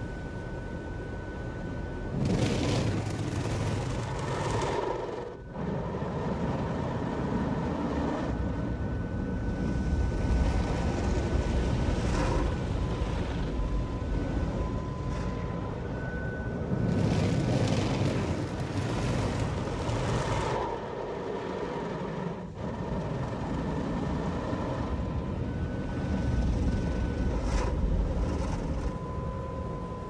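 Automatic gantry car wash heard from inside the car, played at four times speed: water jets and spinning brushes spraying and scrubbing over the windscreen and body. There are two louder hissing surges of spray, a couple of seconds in and again just past halfway.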